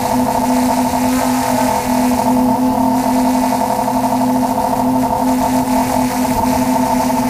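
DJI F450 quadcopter's motors and propellers whirring steadily in flight, heard from the camera mounted on its frame: a constant hum of several steady pitches over a rushing hiss.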